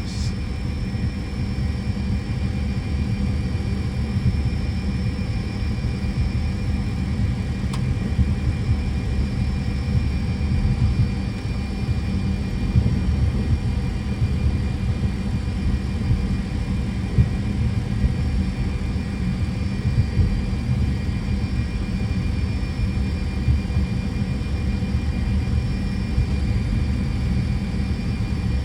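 Steady low rumble with a constant whine inside a Fokker 100 cockpit: the twin Rolls-Royce Tay turbofans running at idle thrust as the airliner lines up on the runway.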